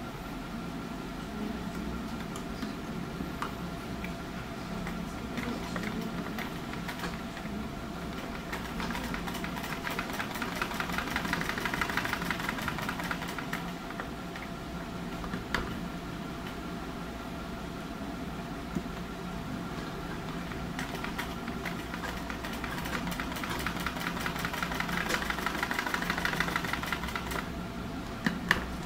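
Sewing machine running in stitching runs, its needle clattering rapidly over a steady hum, loudest about a third of the way in and again near the end. It is sewing a zigzag by hand-guiding the fabric on a straight-stitch machine.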